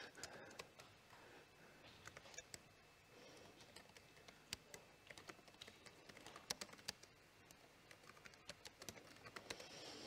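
Faint typing on a computer keyboard: irregular keystroke clicks, in short runs, as text is entered.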